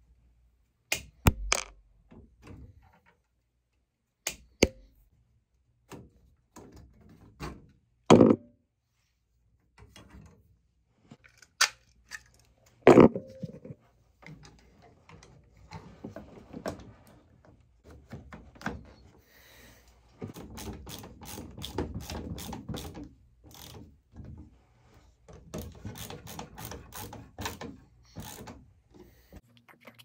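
Wire strippers clicking and snipping on the wiring of a ceiling electrical box while a replacement heat detector base is fitted, with scattered sharp clicks and taps and stretches of rustling handling noise. The loudest clicks come about 8 and 13 seconds in.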